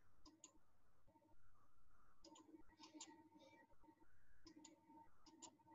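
Near silence with faint, scattered clicks, a few irregular ones every second or so, over a faint steady hum.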